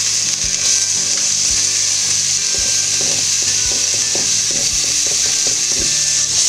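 Diced onion sizzling in hot butter and sunflower oil in a pot as it is scraped in off a plastic cutting board, with a steady high hiss and irregular knocks and scrapes of the spatula.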